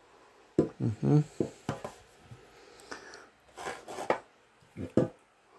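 Handling of a perfume bottle and its cap, which seems to close by a magnet: light clicks and knocks, with a cluster of sharp clicks about three and a half to four seconds in and another near five seconds.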